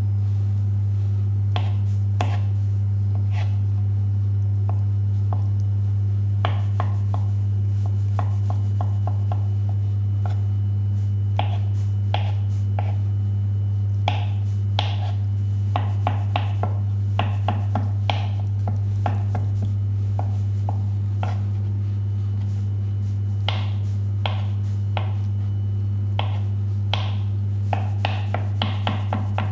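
A small paring knife dicing hard-boiled eggs on a plastic cutting board: irregular light taps of the blade on the board, coming in quick runs in the second half. Under it runs a steady low hum.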